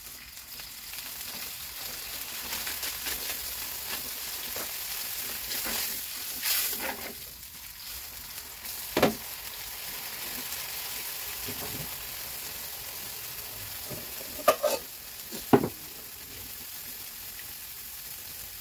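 Oil sizzling steadily as food fries in a steel wok on a gas burner, with a spatula stirring and a few sharp knocks against the wok, the loudest about two-thirds of the way through.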